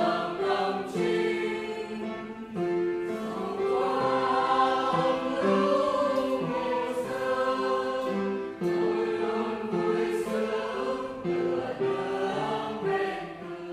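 Mixed church choir singing a Vietnamese hymn in several parts, moving through sustained chords. The singing dies away near the end as the hymn closes.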